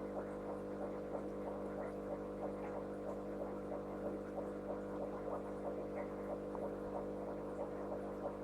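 Aquarium pump running: a steady hum of several held tones, with faint rapid ticks over it.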